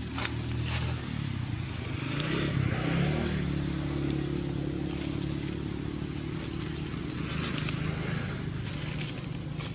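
An engine running, its pitch rising about two to three seconds in and then holding steady, with scattered clicks and scrapes over it.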